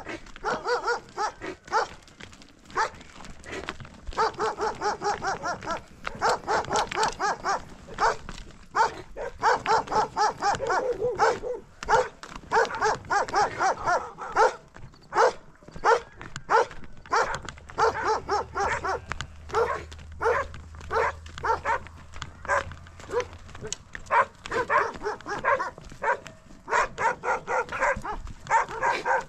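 A dog barking again and again in quick runs of short barks.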